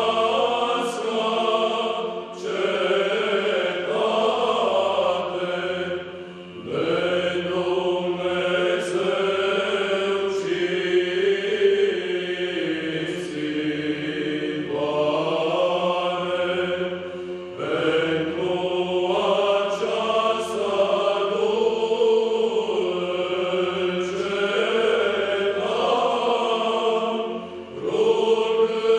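Men's choir singing Orthodox Byzantine chant a cappella: a slow melody carried over a steady low held drone (the ison), with three short breaks between phrases.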